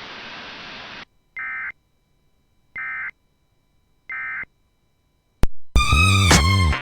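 About a second of radio hiss, then the Emergency Alert System end-of-message code: three short bursts of warbling data tones about 1.4 s apart, the digital signal that closes the warning. Near the end a click, then a loud pitched sound that wavers up and down.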